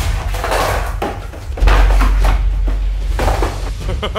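Background music with a deep sustained bass, and three heavy slam-like hits with a short ring after each, spaced about a second or more apart.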